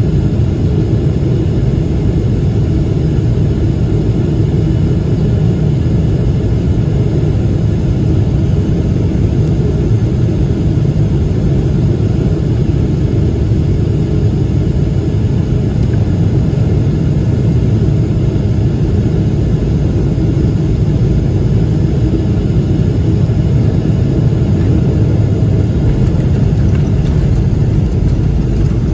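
Cabin noise inside a Boeing 777-300ER on final approach: a steady low rumble of rushing air and the GE90 turbofans, heard from a seat over the wing, growing slightly louder near the end.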